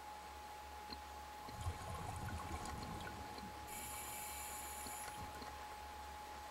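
Scuba diver's exhaled bubbles gurgling, heard underwater, starting about one and a half seconds in with a short hiss near the middle, over a steady faint hum.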